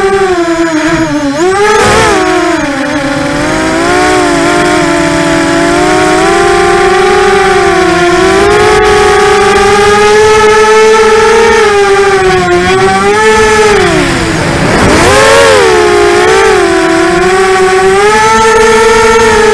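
ImmersionRC Vortex 250 Pro racing quadcopter's four brushless motors and propellers whining loudly, heard close from the quad itself. The pitch rises and falls constantly with the throttle through hard turns, with a deep dip about fourteen seconds in before it climbs again.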